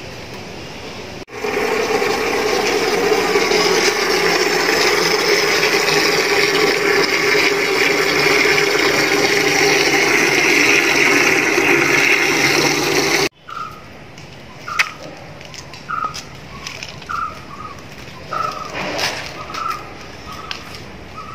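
Water running hard and steadily, as from a tap, for about twelve seconds, then cutting off suddenly. After that, a bird calls in short chirps about once a second, with a few light knocks.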